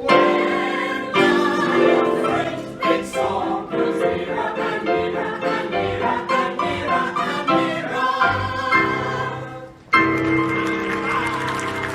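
Music-hall song music playing lively, quickly changing notes and chords. Applause breaks in about ten seconds in.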